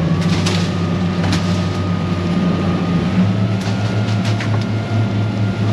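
Outboard motors running steadily with the boat underway, with a faint whine that rises slightly early on. A few sharp knocks from fish being handled on the deck.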